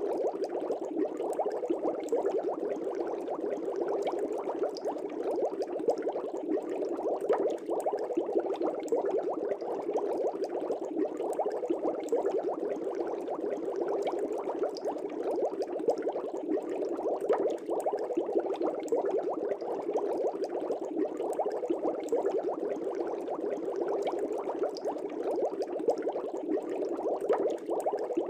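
Air bubbles streaming steadily through water in a fish tank: continuous dense bubbling, full of quick fine pops and crackles.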